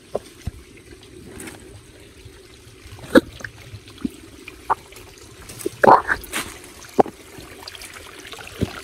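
A small forest stream trickling over rocks, with scattered sharp cracks and knocks of footsteps on twigs, leaves and stones, the loudest about three seconds in and a pair near six seconds in.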